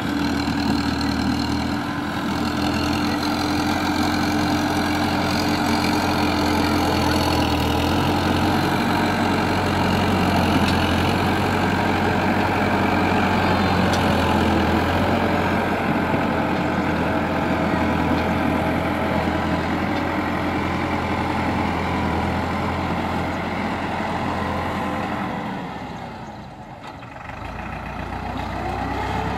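Farmtrac 6060 tractor's diesel engine running steadily, easing off in loudness and pitch for a moment near the end before picking up again.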